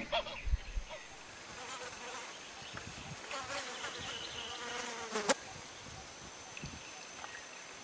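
A flying insect buzzing close by for a few seconds, its pitch wavering, ending with a sharp click about five seconds in, over a steady high-pitched insect trill.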